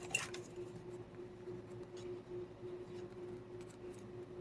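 Quiet handling of paper craft pieces being glued and pressed down: a short tap just after the start and a few faint ticks, over a steady faint hum.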